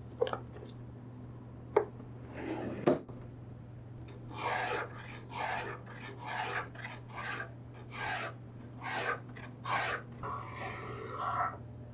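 A few sharp clicks as small planes and tools are knocked about in a plastic box, the loudest sounds. Then a small wooden Okada hand plane shaving the edge of a multi-layer leather knife sheath: about eight quick rasping strokes, each under half a second, followed by a softer continuous scrape near the end.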